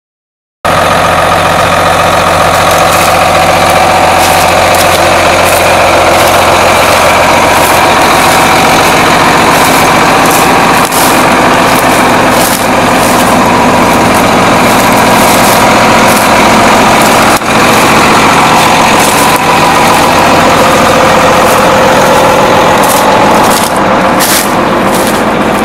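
John Deere four-wheel-drive tractor's diesel engine running steadily close by, a loud, even hum.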